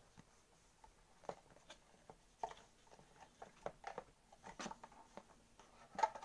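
Cardboard box packaging being opened and its contents handled: irregular light clicks, taps and rustles, a little louder about four and a half seconds in and near the end.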